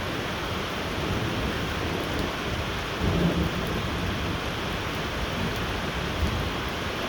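Steady, heavy rain falling, with a low rumble that swells briefly about three seconds in.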